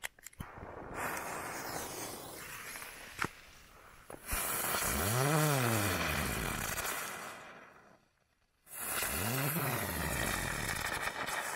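Small ground firework hissing as it sprays sparks. The hiss starts softly about a second in, gets much louder about four seconds in, breaks off for a moment around eight seconds, then hisses again until near the end.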